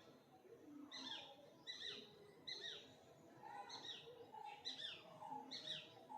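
A bird calling over and over, faint: about seven short, high chirps that each sweep downward, evenly spaced a little under a second apart.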